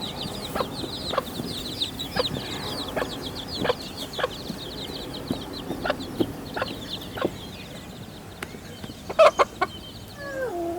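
A brood of baby chicks peeping: a dense run of rapid, high chirps that thins out after about seven seconds, with scattered sharp taps and a few louder knocks about nine seconds in.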